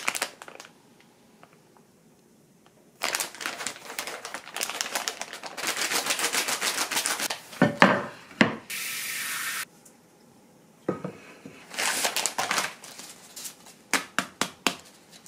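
Kitchen handling sounds: a plastic rice-paper package crinkling and rustling, with a knock in the middle and a short, steady hiss of running water for about a second. Near the end a ceramic plate is handled on a wooden cutting board, giving a few light clicks.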